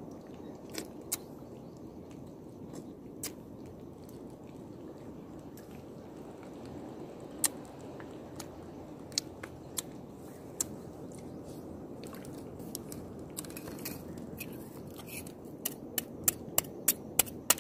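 Sea urchin shell being cracked and picked apart by hand: scattered sharp clicks, then a quick run of about seven clicks near the end.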